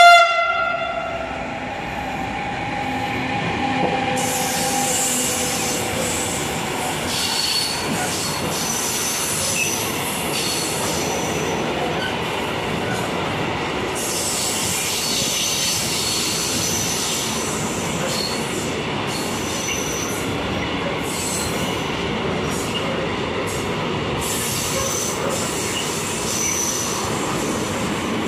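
A container freight train rolling past close by: a steady rumble of wheels on rails with intermittent high-pitched wheel squeals. A locomotive horn blast cuts off right at the start, and a fainter locomotive tone fades away over the first few seconds.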